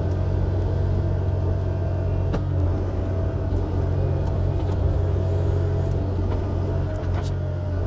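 Excavator's diesel engine running steadily under load, with a faint constant whine above the low rumble and a few light knocks, about two and a half seconds in and again near the end.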